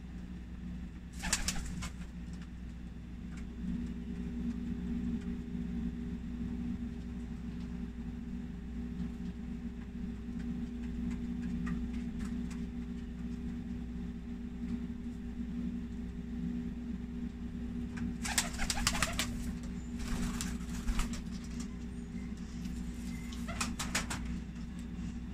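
Pakistani high flyer pigeons cooing, with a few short bursts of wing flapping about a second in and several more near the end.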